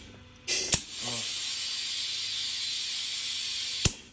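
Compressed air hissing from the Serdi 3 seat and guide machine's air float system. The air comes on about half a second in and cuts off near the end, with a sharp click at each switch.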